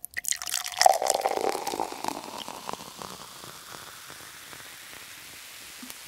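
Intro sound effect that sounds like water: a splashing flurry of drips and clicks that thins out over about three seconds and leaves a soft hiss.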